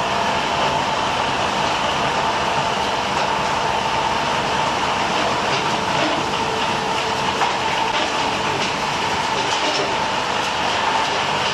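LogRipper-300 scragg mill running, its circular saws cutting a log as it feeds through the machine: a steady mechanical din with a constant high tone and a few light clicks.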